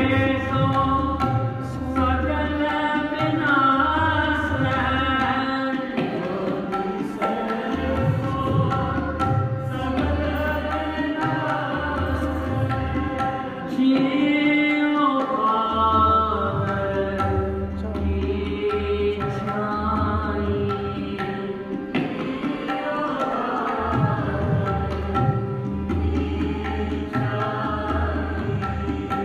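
Sikh kirtan sung in a mournful vairaag style: a man's voice sings a Gurbani hymn in long, bending melodic lines over a steady held drone, with tabla playing a repeating low-drum pattern underneath.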